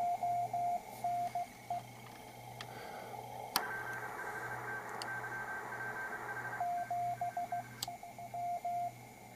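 Morse code (CW) received on an ICOM IC-730 HF transceiver: a keyed beep tone over receiver hiss. A switch click about three and a half seconds in widens the hiss and brings in a higher-pitched Morse signal, and another click near eight seconds narrows the hiss again as the receiver is switched between its wide filter and the newly fitted narrow crystal filter.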